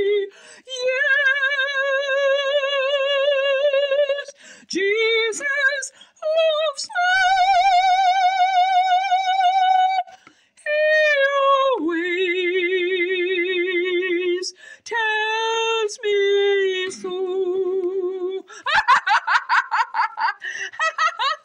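A woman singing unaccompanied, holding long notes with a wide, wavering vibrato and sliding between pitches. Near the end her voice breaks into a quick run of short pulsed notes.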